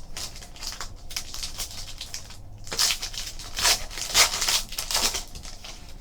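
Plastic packaging crinkling and rustling as trading cards are handled, with louder bursts of crinkling in the second half.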